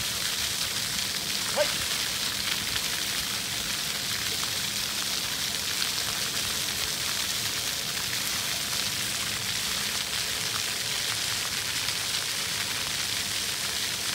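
Steady hiss of splashing water from fountain jets.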